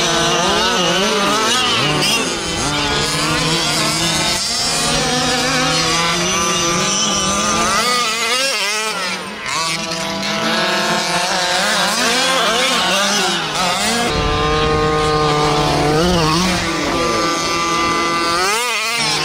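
Several fifth-scale gas-powered RC off-road trucks and buggies racing, their small two-stroke engines revving up and down over one another.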